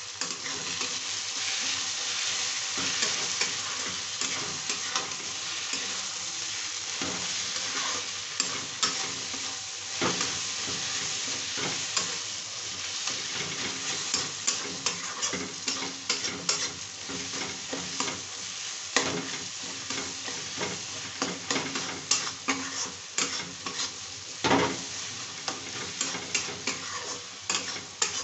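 Sliced onions and spices frying in oil in a kadhai, sizzling steadily as they brown, while a metal spatula stirs and scrapes them. The spatula knocks against the pan many times, more often in the second half, with one louder knock near the end.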